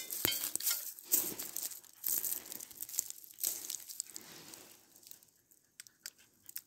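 Dry leaf litter and a papery shed snake skin crinkling as a machete pokes at it and a hand picks it up, in irregular rustles that thin out near the end.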